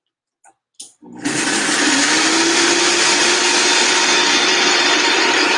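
Countertop blender switched on about a second in, its motor running steadily at high speed as it blends a thick salad dressing.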